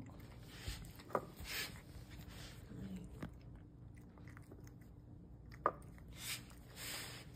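Tabby cat eating wet pâté cat food from a dish: soft chewing and mouth sounds with a few sharp clicks scattered through, and some brief rustles.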